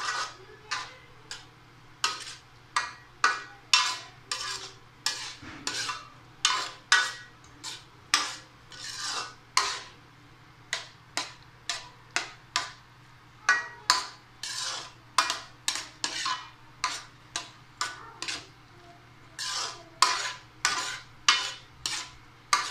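Spoon stirring pili nuts in a cooking pot: repeated scraping and clattering strokes, a little under two a second with short pauses.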